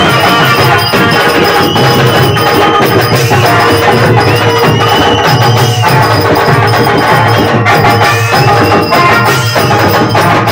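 Live Tamil folk-drama stage music: a steady, quick drum beat with a high, bending melody line over it.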